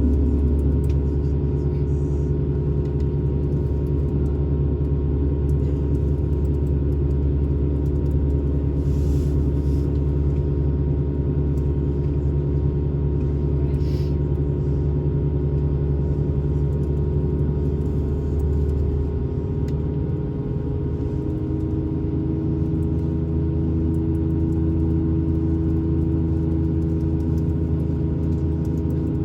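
Steady cabin drone of an Airbus A220-300's Pratt & Whitney PW1500G geared turbofans at low thrust while the jet taxis, heard from a window seat as a mix of engine hum and several steady tones. About twenty seconds in, the deepest hum eases and a new, slightly higher tone comes in as the engine note changes.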